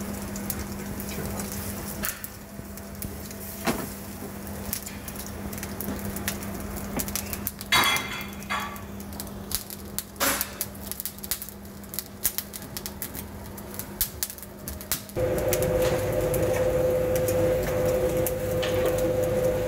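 Kebab skewers sizzling over a charcoal grill, with scattered pops and crackles over a steady low hum. About fifteen seconds in, the background steps up to a louder steady hum.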